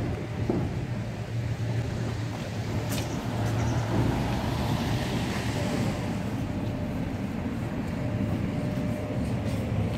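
Street ambience: a steady low rumble of traffic noise, swelling slightly about four seconds in, with a brief click about three seconds in.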